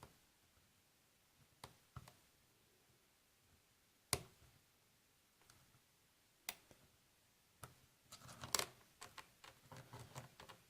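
Faint metallic clicks of a lock pick and tension wrench working the spool and serrated pins of a Master Lock Lockout padlock: a few single clicks a second or two apart, then a quicker run of small clicks near the end.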